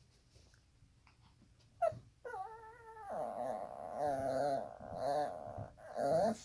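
Chihuahua whining and grumbling up at a person, its pitch wavering up and down for about four seconds after a short sound about two seconds in; a small dog begging for a toy it believes is hidden.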